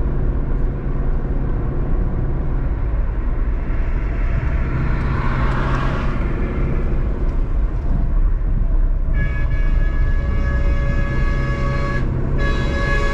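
Steady road and engine rumble of a vehicle driving, with a rushing swell about five seconds in as something passes. About nine seconds in, a vehicle horn sounds a long, steady blast, breaks off briefly near the end and starts again.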